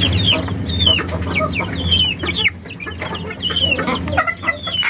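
Backyard desi chickens calling: many short, high, falling peeps and clucks, one after another.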